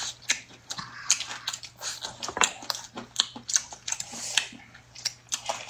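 Close-up eating sounds of people chewing braised chicken wings by hand: a string of short, irregular wet smacks and mouth clicks.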